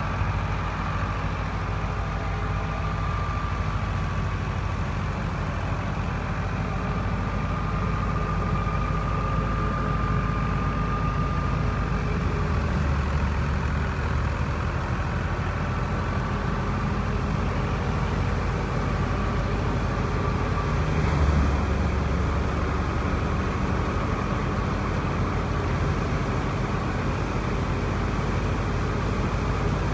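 NH Ghazi tractor engine running steadily under load, driving a wheat thresher, with the thresher's drum churning as wheat sheaves are fed in. The low drone swells briefly about two-thirds of the way through.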